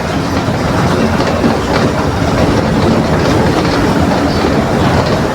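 Mercedes-Benz OF 1721 BlueTec 5 bus engine running as the Marcopolo Torino bus drives, a loud steady drone mixed with road and body noise, with no clear change in pitch.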